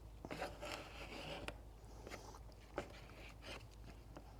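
Body filler with a little added resin being stirred and scraped into a paste, with faint scraping and a few sharp clicks.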